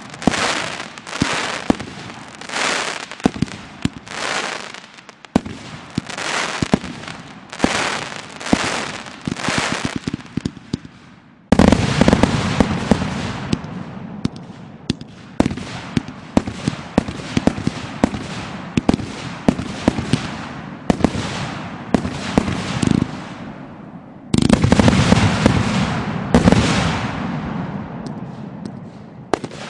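Aerial fireworks going off: a run of crackling bursts about one a second, then about eleven seconds in a sudden loud barrage of sharp bangs and crackling that slowly dies away, and a second sudden loud barrage about twenty-four seconds in.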